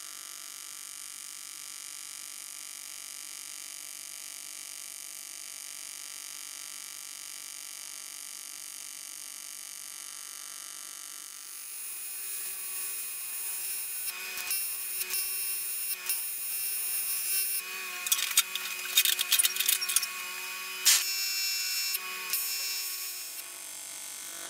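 AC TIG welding arc on an aluminium plate while a hole is filled with filler rod: a steady electric buzz that turns louder and rougher about halfway through, with sharp crackles and pops, then cuts off suddenly at the end.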